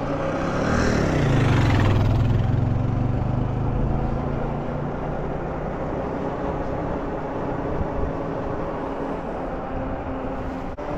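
An oncoming motorcycle passes, its engine note swelling and falling in pitch as it goes by. Steady wind and road rush from the moving e-bike follows, with a steady low hum underneath.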